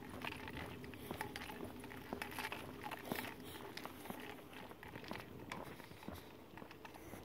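Footsteps on a concrete sidewalk during a dog walk, with irregular small clicks and rustles from the handheld phone, over a faint steady hum.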